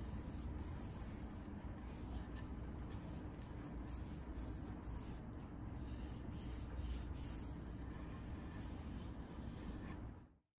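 Foam brush wiping a coat over a walnut and epoxy resin sign: a series of faint, soft rubbing strokes over a low steady hum. The strokes stop a few seconds before the end, and the sound cuts out just before the end.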